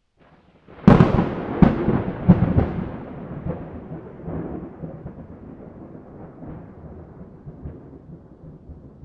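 A close thunderclap: a sudden loud crack about a second in, several more sharp cracks over the next two seconds, then a long rumble that slowly dies away.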